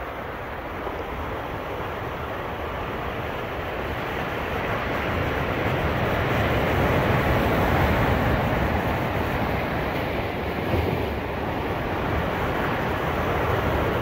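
Ocean surf rushing onto a beach, a steady roar that swells to a peak about halfway through and then eases off a little.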